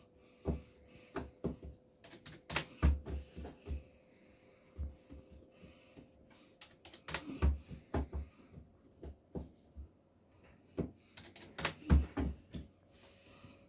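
Irregular series of sharp taps and knocks, many with a dull thump beneath, over a faint steady hum.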